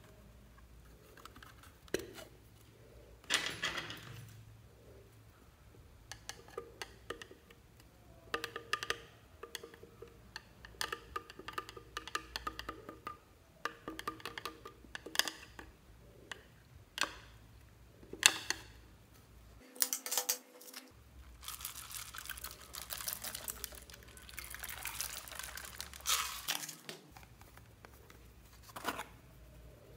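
Close-up handling sounds: a plastic eyeshadow palette tapped and clicked, its powder scraped with a brush in a run of short strokes, then a denser stretch of scratchy rustling and a few taps as a plastic jar of glitter is picked up.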